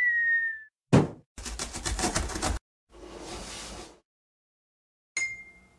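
Cartoon sound effects in sequence: a short whistle-like tone that falls slightly, a single sharp thump, about a second of rapid rattling, a soft whoosh, and a bright ding near the end that fades quickly.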